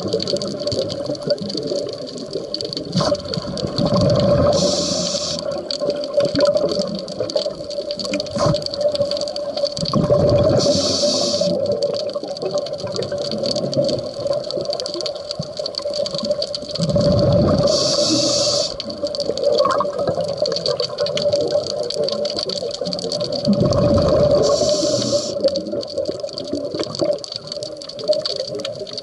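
Scuba diver breathing through a regulator underwater: a hiss of inhaled air about every six or seven seconds, four times, each beside a burst of bubbling from the exhaled breath, over a steady hum.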